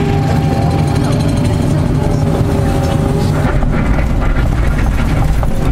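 Liebherr 944C crawler excavator's diesel engine and hydraulics running steadily, heard from inside the cab, with a steady hydraulic whine. About three and a half seconds in, the steel bucket scrapes into crushed stone and rocks clatter against it as it digs.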